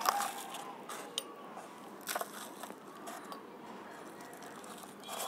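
Potting mix crumbled between fingers and sprinkled into the cells of a plastic seedling tray: a faint rustle of falling mix with a few soft crunches.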